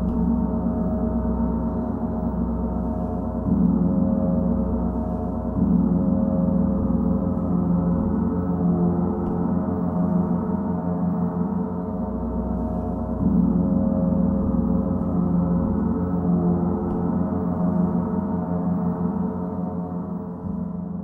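Played gongs sounding a sustained, shimmering wash of overlapping tones with a deep hum underneath, swelling again several times as the gong is struck or rubbed anew, and starting to fade near the end.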